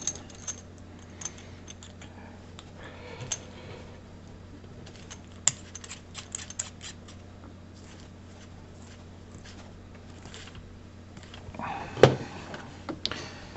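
Small metallic clicks and clinks of coax cable connectors being handled and screwed together, with one louder click about twelve seconds in. A faint steady low hum runs underneath.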